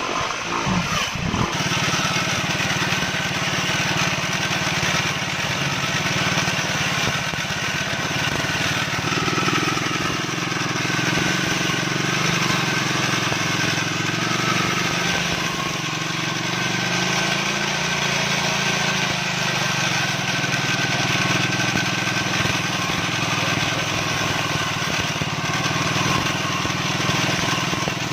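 Small brush cutter engine running steadily under throttle, driving a two-blade cutting head; its pitch wavers a little in the middle.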